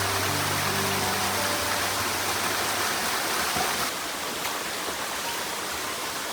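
Rushing water, steady and loud, easing a little about four seconds in. Soft background music of held low notes plays under it.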